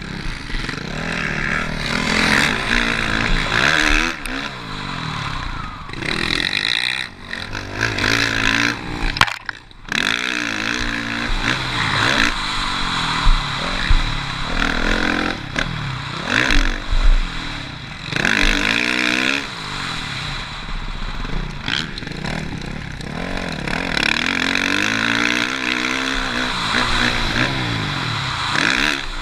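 Suzuki RM-Z450 motocross bike's single-cylinder four-stroke engine revving hard and falling off again and again as it rides a motocross track. The throttle cuts briefly about nine seconds in, and there are a few sharp clatters in the middle.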